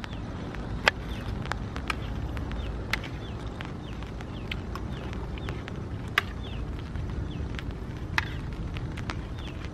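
A metal spoon clicking and scraping against a plate as food is scooped up, a sharp tick every second or so, the loudest about a second in and about six seconds in. Faint high chirps and a steady low rumble sit underneath.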